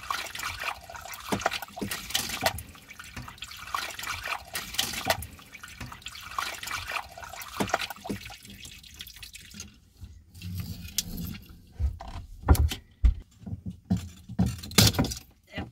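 Seawater spurting and splashing in through a 10 mm hole drilled through a boat's hull below the waterline. The water sound dies away about halfway, and a few knocks and bumps of handling follow near the end.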